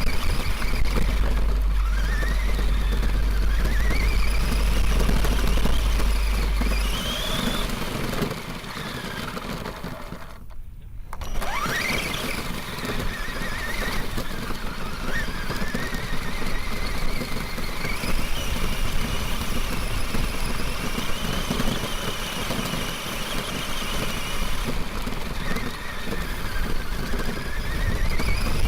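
Arrma Granite 4x4 RC truck's brushless motor and drivetrain whining under throttle, the pitch rising and falling as the truck speeds up and slows, over the rush of the tyres on the ground. The sound is picked up by a camera mounted on the truck. About ten seconds in, the sound drops out briefly, then comes back with a sharp rising whine as the truck accelerates.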